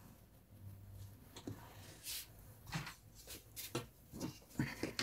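A long wooden ruler being handled and laid across large sheets of pattern paper. It makes a scatter of short rustles and taps that start about two seconds in and come closer together near the end.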